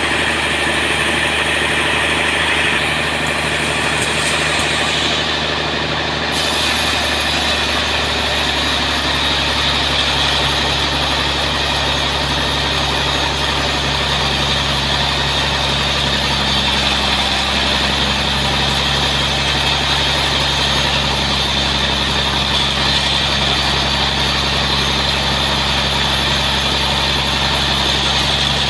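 Sawmill machinery running steadily, an engine's hum under continuous saw noise; about six seconds in, a high hiss comes in abruptly and stays.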